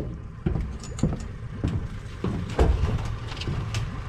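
An engine idling as a steady low rumble, with irregular knocks and bumps several times a second, some of them loud.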